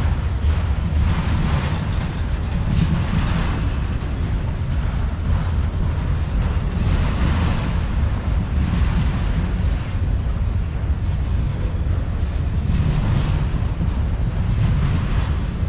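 Autorack freight cars rolling past on the rails in a steady low rumble, with wind buffeting the microphone and irregular swells of hiss.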